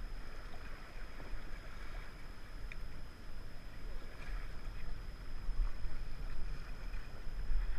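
Raft paddles dipping and pulling through river water, over a steady rush of moving water, with wind rumbling on the microphone.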